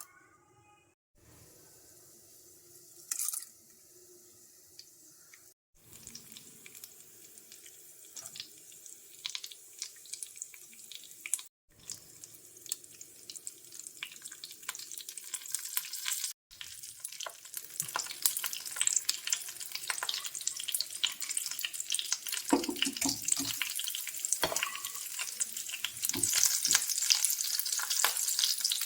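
Hot oil sizzling and crackling as besan-coated taro root pieces fry in a pan, faint at first and much louder over the second half, with a few knocks of a spatula against the pan. The sound drops out briefly several times.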